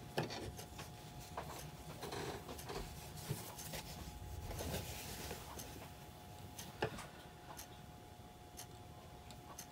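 Fabric pieces being handled and smoothed on a cutting mat: soft rustling with scattered light ticks and taps, the sharpest about seven seconds in, over a faint steady hum.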